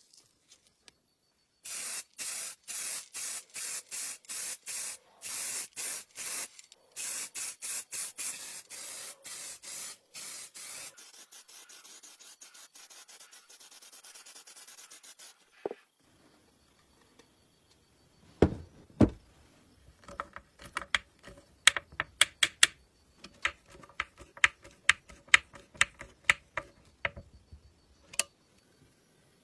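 Aerosol spray can sprayed in short repeated bursts, about two to three a second, then held in a softer steady hiss. After a pause, a run of sharp clicks and knocks, the loudest sounds here.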